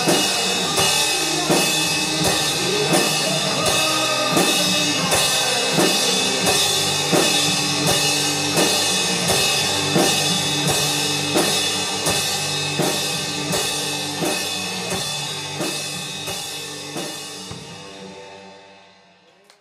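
Drum kit played to a rock backing track with no vocals: a steady beat of bass drum and snare under a wash of cymbals. It fades out over the last few seconds.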